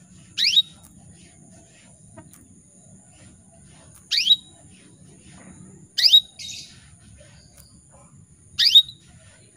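Female domestic canary giving four short, sharp rising calls a few seconds apart, each sweeping upward and ending on a brief clipped note. It is the calling of a female in breeding condition summoning a male.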